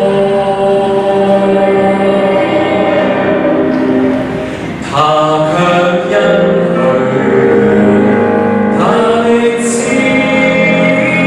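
Live worship band (keyboard, electric guitar, bass guitar and drum kit) playing a medley of Catholic hymns, with a man singing lead into a microphone. The music thins out briefly about four seconds in, then comes back in full.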